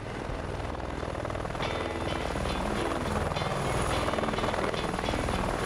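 Light helicopter approaching low overhead, its rotor beat and turbine growing gradually louder.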